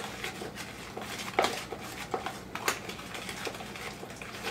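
A spoon stirring a thick mixture of soft cream cheese and sour cream in a mixing bowl, with a few sharp knocks of the spoon against the bowl.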